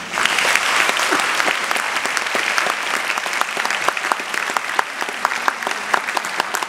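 Audience applause breaking out suddenly as the music ends: a dense wash of clapping at first that thins into more distinct individual claps.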